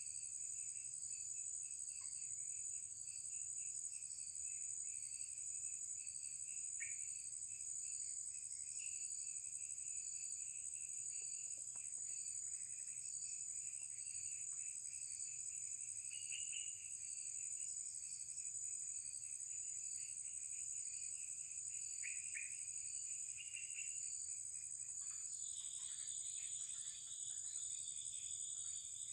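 Steady high-pitched chorus of insects droning without a break, with a few short chirps scattered through it; a second, lower insect drone joins near the end.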